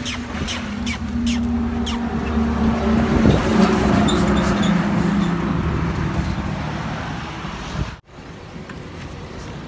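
A heavy truck passing close by on the highway: its engine hum grows louder, peaks about three to four seconds in and then fades away. The sound cuts off suddenly about eight seconds in, leaving quieter traffic noise.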